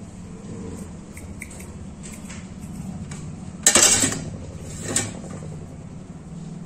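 Metal peeling knife scraping and clinking against a stainless steel tray while the spiny edges are cut off an aloe vera leaf, with small ticks throughout, one loud scrape about four seconds in and a shorter one a second later.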